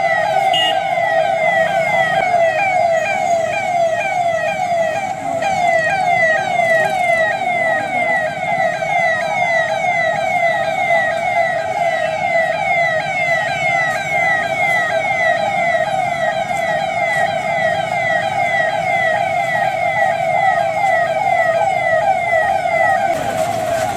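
Siren sounding continuously as a public Covid-19 awareness signal: a steady loud tone with rapidly repeating falling sweeps above it.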